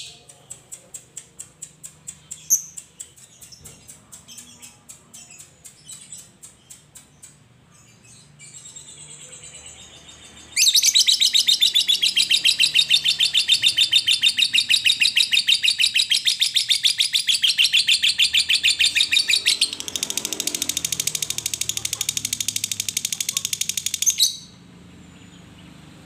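Fischer's lovebird ticking in quick, fading clicks for several seconds, then breaking into a long, loud, fast chattering trill (the 'ngekek' long chatter) that runs for about fourteen seconds, eases slightly partway, and stops abruptly near the end.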